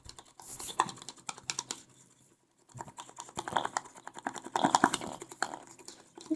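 Rapid clicking and tapping of a pencil stirring glue and baking soda in a cup, in two spells of quick irregular ticks.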